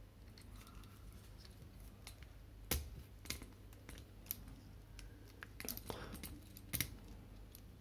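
Plastic Transformers action figure being handled and transformed, its parts clicking and snapping into place. Scattered sharp clicks, the loudest about three seconds in and a small cluster near six seconds.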